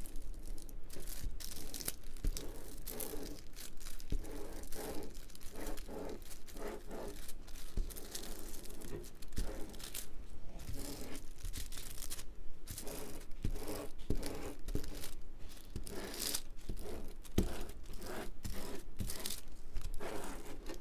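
Blue painter's tape pulled off the roll in a series of short rips and pressed down by hand over the crinkly plastic cover film of a diamond painting canvas.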